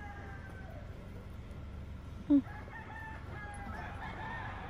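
A rooster crowing, with a short rising squeak about two seconds in.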